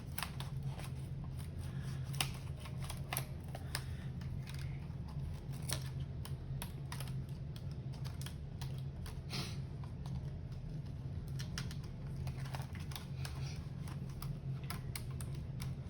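Scattered small plastic clicks and taps from a Dell Latitude E7440 laptop's keyboard and case being handled and pried apart, over a steady low hum.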